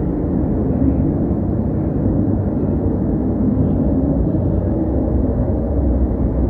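Loud, steady low rumble from outside, muffled through a shut Velux roof window, with no clear tone or beat.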